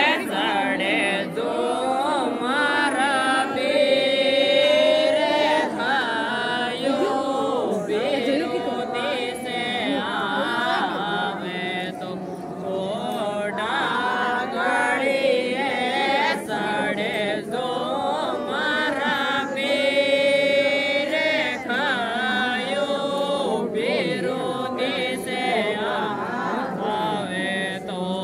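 A group of women singing a Marwari mayra geet, a traditional Rajasthani wedding folk song, in chorus, the voices rising and falling in long melodic lines.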